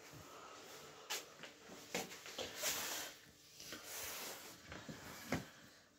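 Handling noise from a phone being moved about: rustling with a few sharp clicks and knocks.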